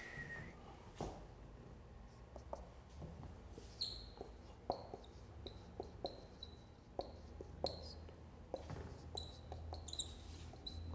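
Dry-erase marker squeaking and tapping on a whiteboard as words are written: faint clicks, then from about four seconds in a run of short, high squeaks with each stroke.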